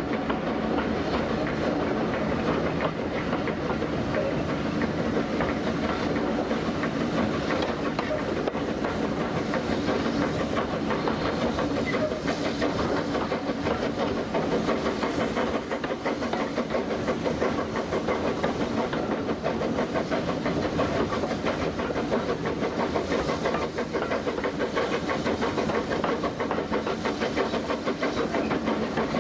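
Steam-hauled train running, heard from a carriage window: the locomotive working ahead with steady hiss and exhaust, and the coach wheels clattering over the rails.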